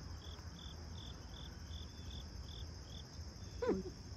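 Insect chorus: a steady high-pitched trill, with a slower, even chirping of nearly three chirps a second that stops about three seconds in. A brief human voice sound comes near the end.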